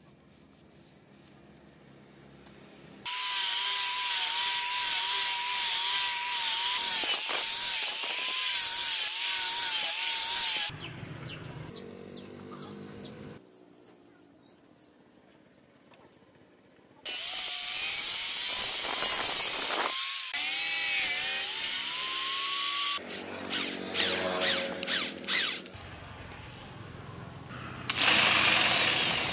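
Electric hand drill running in several separate bursts, boring holes through a knife's steel tang and its wooden handle scales. It starts about three seconds in, and the motor's whine wavers and dips as the bit bites.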